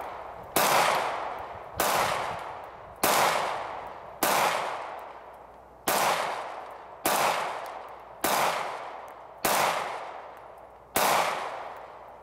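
Pistol being fired in a steady string of nine shots, a little over a second apart, each shot trailing off in a long echo.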